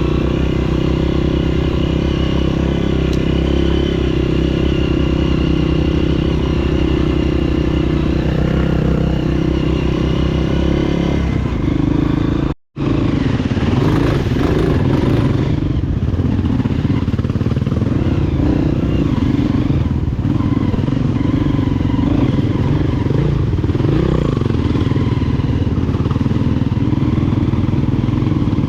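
Honda CRF230F air-cooled single-cylinder four-stroke engine running at a steady speed. After a brief cut about halfway through it runs less evenly, its pitch wavering up and down.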